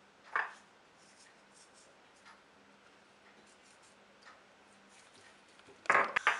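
Fingers sprinkling and rubbing turmeric and salt into whole raw tilapia on a ceramic plate: faint scratchy rubbing, with a short knock about half a second in and a quick cluster of louder knocks near the end.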